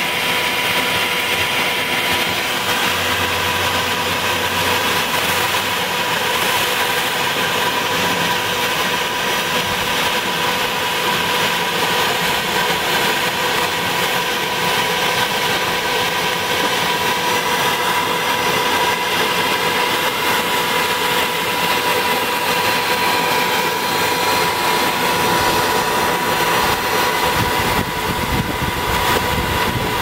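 Vacuum cleaner running steadily with a constant whine while its hose nozzle sucks spotted lanternflies off a tree trunk.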